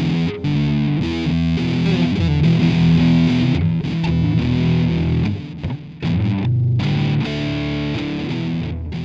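Outro music: a distorted electric guitar track with effects, fading out at the end.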